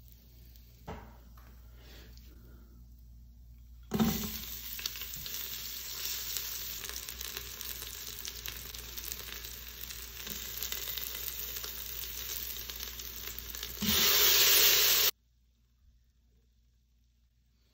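Food sizzling in hot oil, starting suddenly about four seconds in with a brief loud burst and then frying steadily. Near the end a louder, even hiss takes over for about a second and cuts off abruptly.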